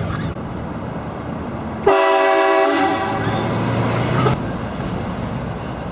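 Car-mounted train horn blasting once, starting suddenly about two seconds in and held for about two and a half seconds. Steady street and vehicle noise runs underneath.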